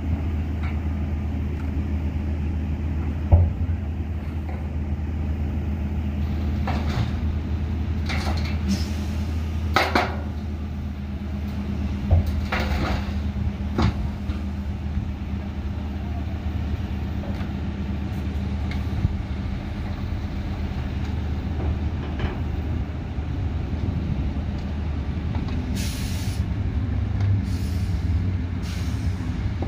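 Heavy dump truck's diesel engine running steadily while the tipper body is raised, with several short sharp sounds over the drone.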